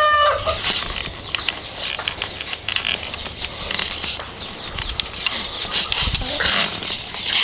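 A pen of chickens making many short, busy clucks and scratching sounds, with the end of a pitched crow or call fading out just after the start.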